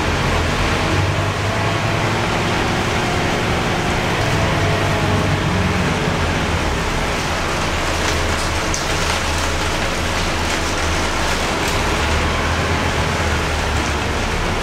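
Scania K230UB bus heard from inside the cabin while driving: its Scania DC9 five-cylinder diesel and ZF Ecomat automatic gearbox run with a steady low hum. The hum sits under a constant hiss of rain and wet road.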